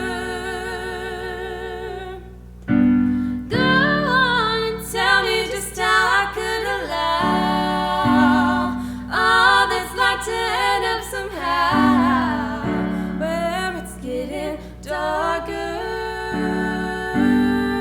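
A woman singing over held keyboard chords. The keyboard plays alone at first, and the voice comes in about three and a half seconds in.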